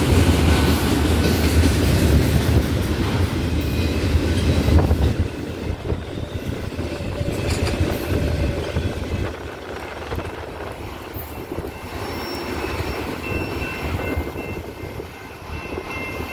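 Empty autorack freight cars rolling past, their wheels rumbling and clicking over the rail joints. The heavy rumble drops away after about five seconds, leaving a lighter rolling sound with faint high wheel squeals near the end.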